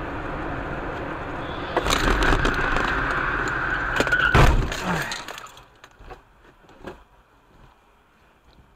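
Car tyres screeching under hard braking for about two seconds, then a loud crash about four seconds in as the car rear-ends the SUV ahead. The sound then drops away to faint road noise.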